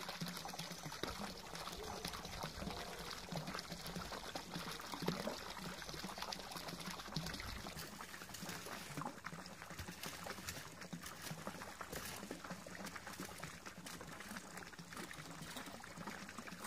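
Water pouring from a pipe outlet into a garden pond, a steady splashing trickle, with light scraping and rustling of a rake in leaves and grass. The pouring grows fainter about eight seconds in.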